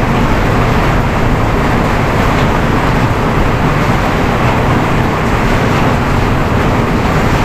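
Heavy downpour: a loud, steady rush of rain without a break.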